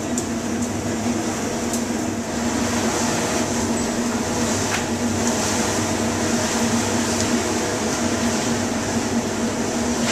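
Steady hum and hiss of a commercial kitchen's ventilation over an open grill, with a few faint clicks.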